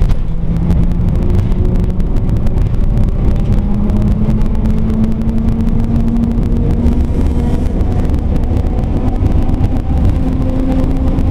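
Moving tram heard from inside the car: a heavy low rumble of wheels on the rails, with the traction motors' whine climbing slowly in pitch as it gathers speed.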